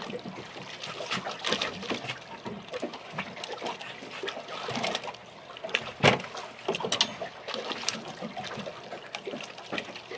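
Water dripping and splashing, with irregular knocks and rustling, as a freshly caught fish is worked out of a wet landing net on a boat. A single sharp knock about six seconds in is the loudest sound.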